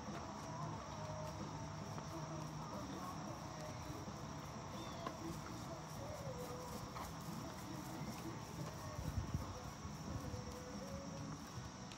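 Steady high-pitched chorus of crickets and other insects, unbroken throughout, with a few faint scattered knocks.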